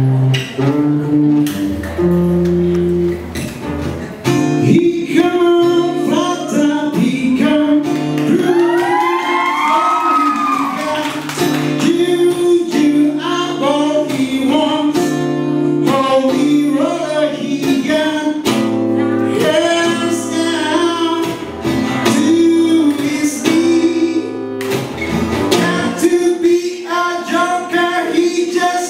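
A man singing to his own acoustic guitar accompaniment. The guitar plays alone at first, and his voice comes in about four seconds in.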